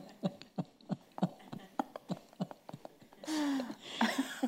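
Soft laughter: a run of short breathy pulses, each falling in pitch, about three a second. About three seconds in it gives way to a longer falling voice sound, like a sigh.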